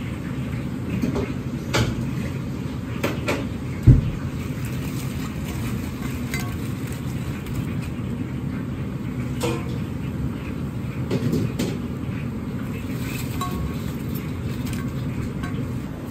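Fried tofu cubes tipped from a wire strainer onto a porcelain plate, with scattered clinks and knocks and one louder thump about four seconds in. A steady low roar of a restaurant kitchen runs underneath.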